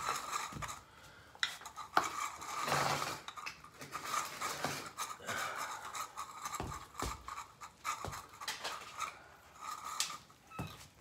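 Cat food bowls clinking and clattering as they are handled and set down: a run of irregular small knocks and taps, with a longer rustling clatter about three seconds in.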